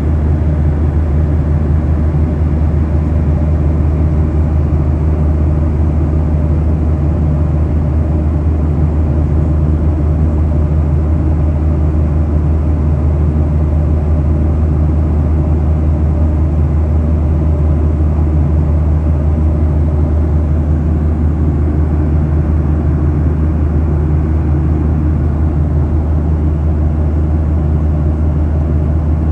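Airliner cabin noise in flight: the jet engines and airflow make a steady, unchanging drone with a strong low hum.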